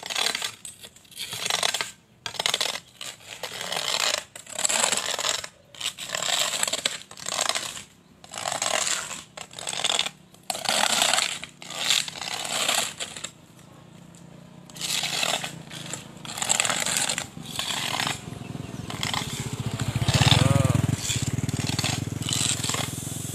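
Hoes scraping and chopping into a dirt road surface in repeated strokes, about one a second. Past the middle a low engine hum comes in and grows, loudest shortly before the end.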